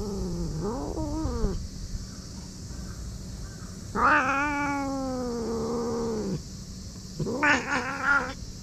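Cat growling and yowling in anger: a wavering low growl in the first second and a half, a long drawn-out yowl about four seconds in that starts loud and slides down in pitch, then a run of short choppy growls near the end.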